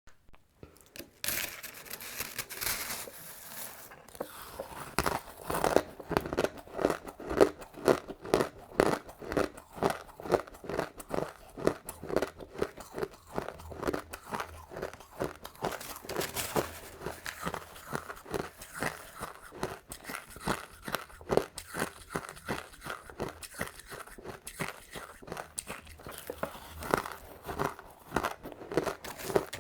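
Crushed ice being bitten and chewed close to the microphone: sharp, crisp crunches in a steady chewing rhythm.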